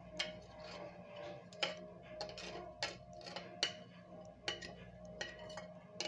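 Metal spoon scraping and knocking against a ceramic plate as cut chicken is pushed off into a pan. There are sharp clinks about once a second, with softer scraping between them.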